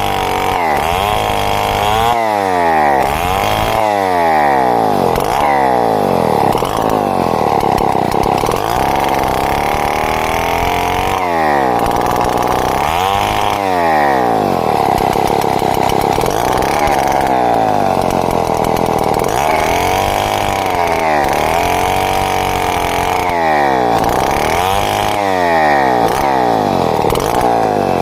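Two-stroke chainsaw running hard while ripping timber into boards, its engine pitch dipping and climbing back again and again as the chain bites and frees in the cut.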